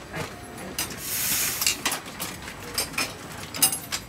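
Automatic ningyo-yaki baking and bagging machine at work: irregular mechanical clicks and clacks, with a short burst of hiss about a second in.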